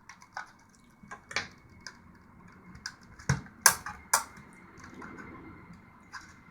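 Sharp plastic clicks and snaps as the plastic casing of a Seagate Expansion Desktop drive is pried and pulled apart. Scattered single clicks, with the loudest three coming quickly one after another between about three and four seconds in.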